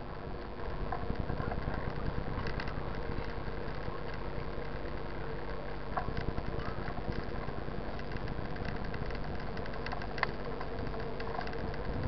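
Mountain bike rolling along asphalt: a steady tyre hum over a low road rumble, with a few faint clicks and rattles.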